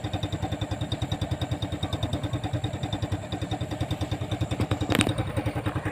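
Skygo Hero S125 motorcycle engine idling smoothly with an even, rapid pulse, kept well oiled. A single sharp click about five seconds in.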